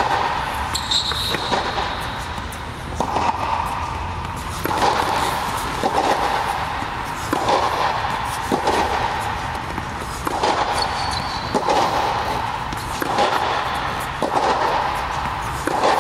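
Tennis ball struck by a racket again and again, about one hit every one and a half seconds, each hit ringing on in the echo of an indoor court. There are a couple of brief high squeaks.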